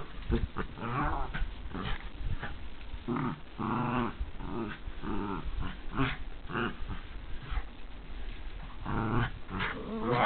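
A puggle growling in a run of short bursts while tugging on a rope toy: play growling during tug of war.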